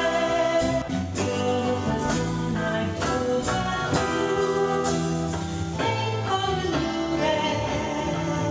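A woman singing a musical-theatre song over live band accompaniment with a steady beat.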